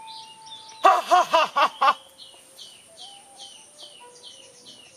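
A loud burst of cackling laughter about a second in, five quick pulses that rise and fall in pitch, lasting about a second. Under it runs a faint, regular series of high chirps with soft stepping tones.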